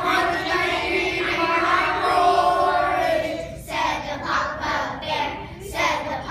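A group of young children singing together in unison: one long held note for about the first three seconds, then shorter broken phrases.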